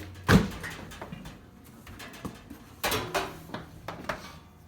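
Sharp metal clicks and knocks from an air chuck being fitted onto a compressor air hose's coupler. There is a loud click about a third of a second in and a cluster of clicks around three seconds.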